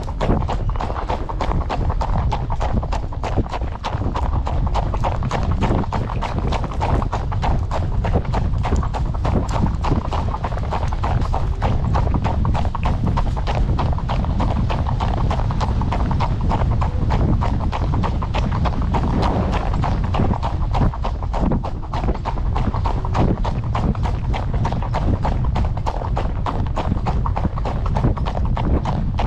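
Hoofbeats of a ridden horse walking along a road, a steady run of clip-clops over a constant low rumble.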